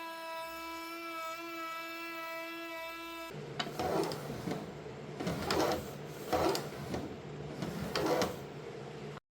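Electric wood router running at full speed with a steady high whine. About three seconds in the sound turns rougher and swells and fades roughly once a second, then cuts off suddenly near the end.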